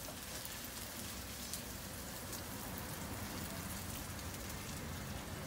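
Seafood pajeon sizzling in hot oil in a frying pan: a steady crackling hiss with scattered small pops.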